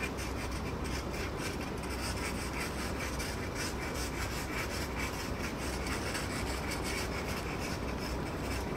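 Snow and ice being scraped off a car, a rapid run of rasping strokes with a low steady rumble underneath.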